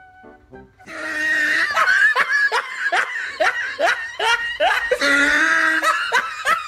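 Loud laughter starts about a second in and runs on in quick 'ha' syllables that fall in pitch, several a second. Faint music is heard just before it.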